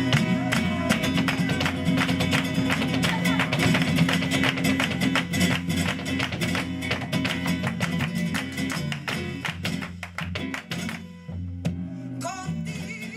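Live flamenco soleá: flamenco guitar with a fast, dense run of sharp percussive strikes over it. The strikes stop about eleven seconds in, leaving a few last hits as the music thins out.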